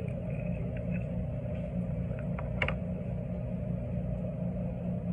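Steady low mechanical hum of laundromat washing machines and dryers running, with a few faint clicks about two and a half seconds in.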